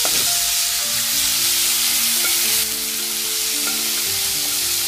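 Sausage and onions sizzling as they fry in butter in a pot: a loud, steady hiss. A simple tune of held notes plays under it.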